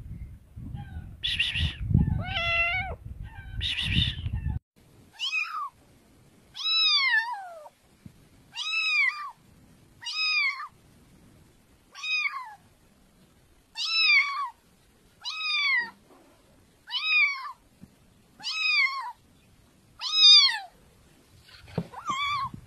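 A kitten meowing over and over, one high-pitched meow about every one and a half seconds, each rising and then falling in pitch. For the first few seconds the meows come over low rumbling outdoor noise.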